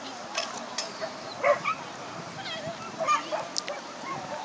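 A dog barking in several short, sharp barks at uneven spacing.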